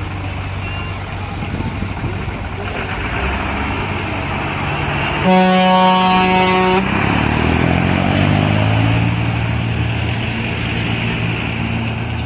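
Tractor engines running steadily as they drive in procession. About five seconds in a horn sounds one loud blast lasting about a second and a half, and just after it an engine speeds up, its pitch rising.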